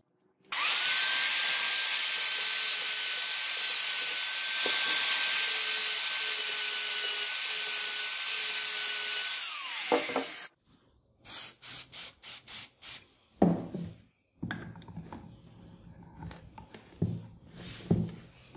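Angle grinder motor running without its gear head: it spins up about half a second in, runs with a steady high whine for about nine seconds, then spins down. After that come a quick run of short sharp clatters and a few knocks as the housing is handled and set into a vise.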